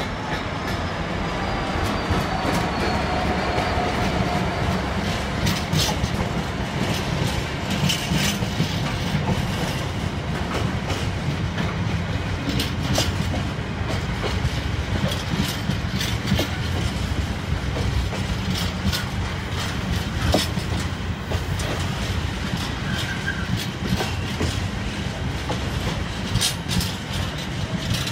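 Freightliner Class 66 diesel locomotive passing, followed by a long rake of mostly empty container flat wagons rolling by with a steady rumble and irregular clicks of wheels over rail joints.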